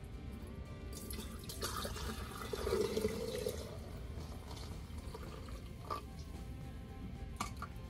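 Liquid pouring and splashing, loudest for about a second near the middle, followed by a few light knocks.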